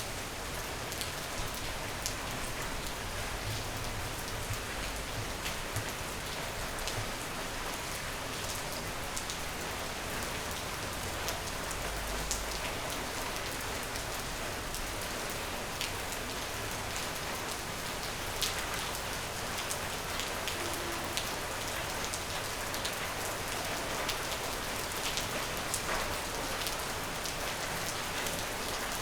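Steady rain falling, an even hiss with many small sharp drop ticks on a hard surface.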